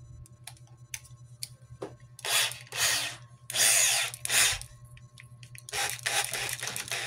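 Handheld electric drill with a small bit, run in several short bursts of a second or less, the longest near the end.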